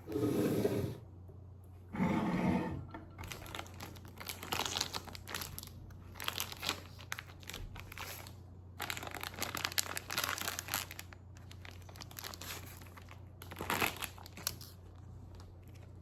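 Crinkling and rustling of something being handled, in repeated bursts, after two short louder sounds at the start.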